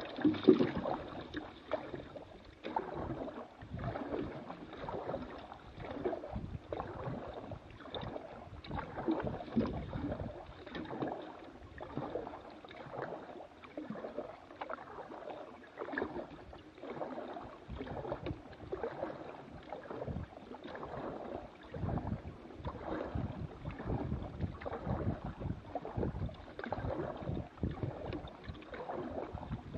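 Canoe being paddled along a calm river: paddle blades dipping and pulling through the water, a splash and gurgle with each stroke, roughly one stroke a second.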